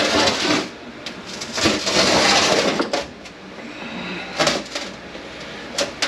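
Heavy steel parts of an SM465 manual transmission being worked by hand: several sharp metal knocks, and a longer stretch of scraping about two seconds in, as the countershaft is shifted back to free the front bearing and input shaft.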